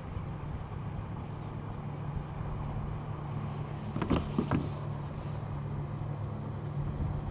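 Boat motor running steadily at low speed, a low even hum. A few short sharp clicks come about four seconds in.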